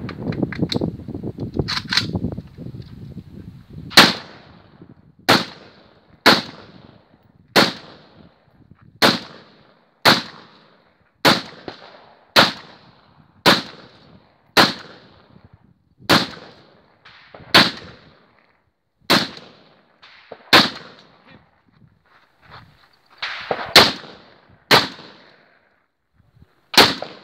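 A series of single gunshots from a gun fitted with a muzzle brake, about twenty sharp cracks roughly a second apart, each with a short ringing tail. The loud shots begin about four seconds in, after a few fainter ones.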